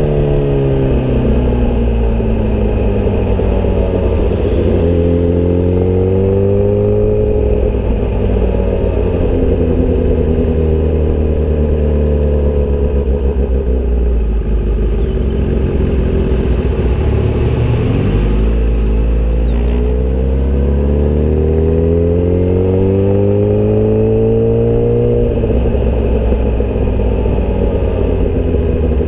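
Sport bike engine through an aftermarket SC-Project exhaust, heard while riding, its pitch rising and falling with the throttle. About two-thirds of the way through the revs drop sharply, then climb steadily for several seconds before easing off again.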